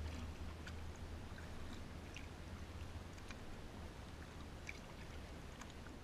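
Kayak paddling: small irregular drips and splashes of water off the paddle and against the hull, over a steady low rumble.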